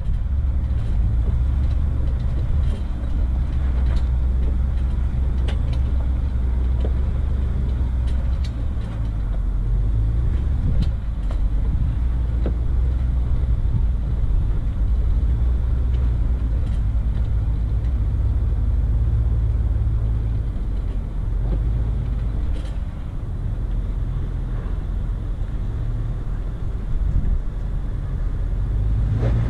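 4x4 vehicle's engine running low and steady as it crawls over a rocky trail, with a few scattered sharp clicks and knocks from rocks under the vehicle.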